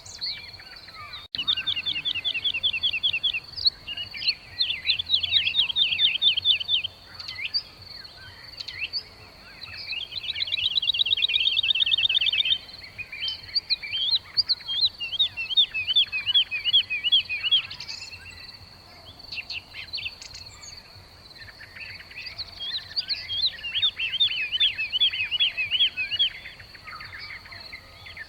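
Small songbirds singing in bursts of fast, rattling trills and chatter, each burst lasting a second or few with short pauses between. A steady high-pitched tone runs underneath.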